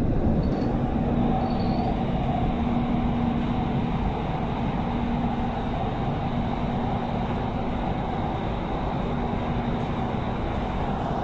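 Doha Metro train running, heard from inside the carriage: a steady rumble with a constant low hum.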